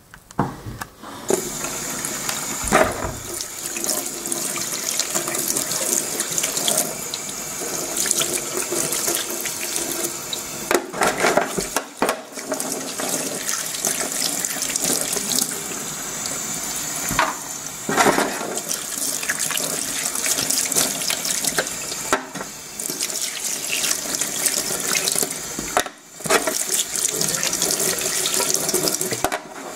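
Kitchen tap running into a stainless steel sink while corroded brass cartridge cases are rinsed by hand under the stream. The water starts about a second in, and the splash shifts as the cases move through the stream, with a few brief dips.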